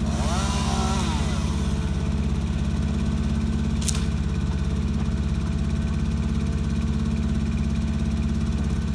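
Crane truck's engine running steadily at a low, even drone. A faint whine rises and falls in the first second or so, and a short hiss sounds about four seconds in.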